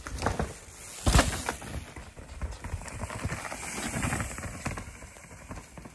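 Irregular crunching and knocking of movement over dry twigs and pine needles on a forest trail, with a loud thump about a second in.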